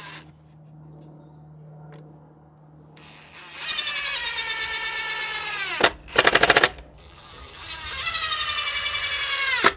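DeWalt cordless impact driver driving two screws into cedar. Each time there is a long rapid run that slows and drops in pitch as the screw bites, then a short, louder burst of hammering as the screw seats.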